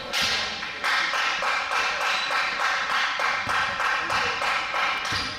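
Rapid, even tapping, about four or five sharp strokes a second, starting suddenly.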